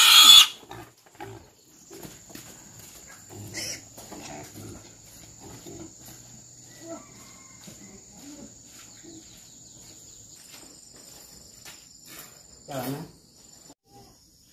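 A domestic pig's loud squeal cutting off about half a second in, then quiet scattered shuffling and grunt-like sounds over a steady high-pitched whine, with one short louder cry near the end.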